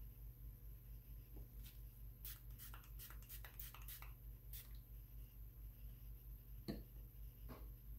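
Faint clicks and light scraping from hand work with small objects, clustered in the middle, with one louder knock near the end, over a steady low hum.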